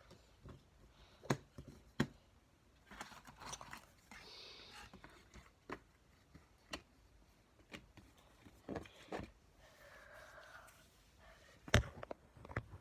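Scattered light knocks, clicks and scrapes of small objects being handled, with a sharper knock near the end.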